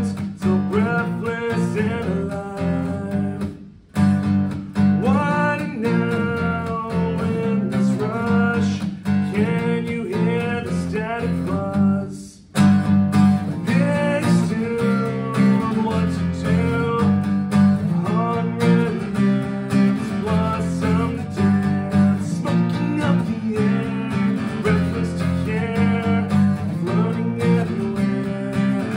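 A man singing while strumming an acoustic guitar. The music breaks off for a moment about four seconds in and again about twelve seconds in.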